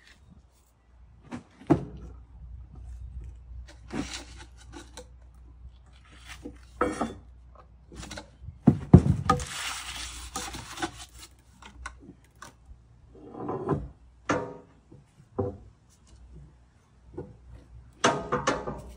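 Steel pry bar and wooden rolling logs knocking and scraping against a heavy stone flagstone and the wooden trailer bed in irregular clanks and thuds. The loudest knock comes about nine seconds in and is followed by a longer scraping noise.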